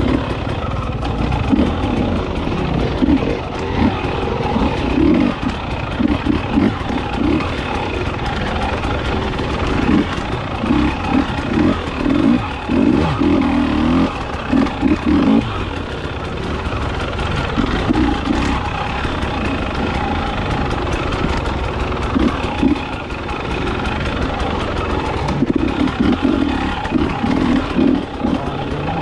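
KTM 300XC two-stroke enduro motorcycle being ridden on a trail, its engine revving up and falling back in repeated irregular throttle bursts.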